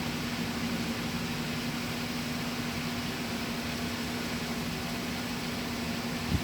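Steady low machine hum with an even hiss, and a single short knock near the end.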